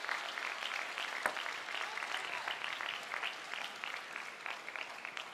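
Arena crowd applauding a won point in a table tennis match, dense clapping that slowly fades toward the end, with one sharp click about a second in.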